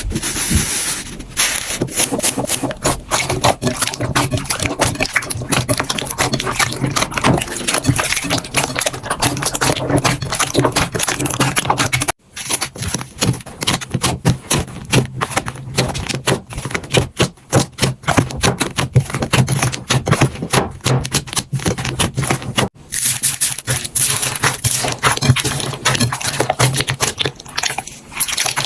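Slime being squeezed and pressed by hand: a dense run of small crackles, clicks and pops. It breaks off suddenly twice, about twelve and twenty-three seconds in, and carries on at once.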